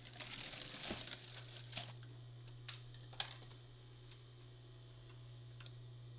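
Cloth handled and rustled during the first second, then a few scattered sharp clicks and taps, over a steady low hum.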